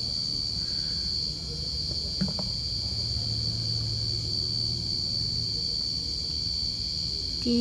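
Crickets trilling in one steady, unbroken high tone, with a faint low hum beneath and a single soft click about two seconds in.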